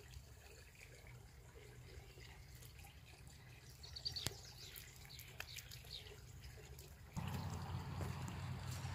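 Faint wet squelches and light pats of a bare hand pressing and smoothing a mound of wet clay. A louder, even hiss comes in about seven seconds in.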